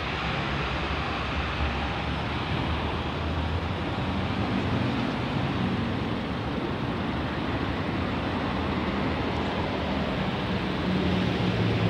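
Steady rushing background noise with a low hum underneath, without a clear single source.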